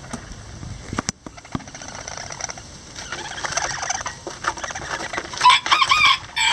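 Lavender Old English Game bantam chickens on a straw nest: soft scratchy rustling, then a quick run of loud, wavering, warbling calls near the end.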